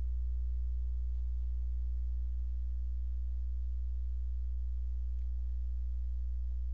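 Steady low electrical hum, constant in pitch and level, with faint higher tones above it.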